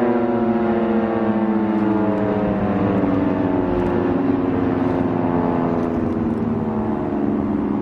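Outdoor tornado warning siren sounding a low, steady tone made of several stacked notes that slowly falls in pitch.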